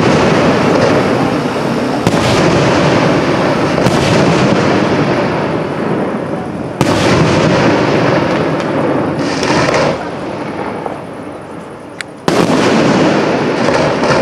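Fireworks display: aerial shells bursting with four big bangs, each followed by a long rolling echo, with a quieter lull before the last bang near the end.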